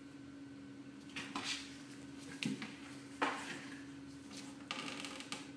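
A cardboard box scraping and bumping on a wooden floor as a cat shifts about inside it: a run of short scuffs and rustles, the loudest about three seconds in.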